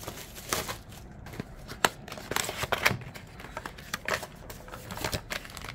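Rustling and scattered light clicks of packaging being handled while rummaging in a shipping box.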